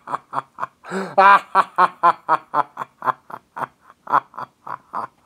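A man's voice giving a drawn-out evil laugh, a steady 'ha-ha-ha' of about four pulses a second, loudest about a second in and trailing off toward the end: a cartoon villain's gloating laugh.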